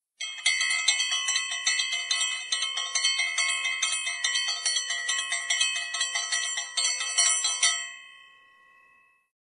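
Bell-like intro jingle of quickly struck chiming notes, about four a second. It stops about eight seconds in and rings away.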